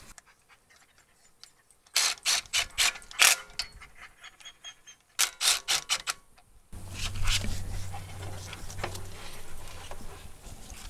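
Cordless impact wrench run in short bursts, driving the wheel spacer's nuts onto the hub studs: two spells of sharp rattling, about two seconds in and again around five seconds. After that a steady low hum takes over.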